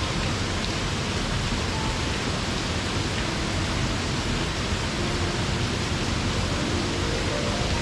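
A waterfall falling into a mountain stream: a steady, unbroken rush of water.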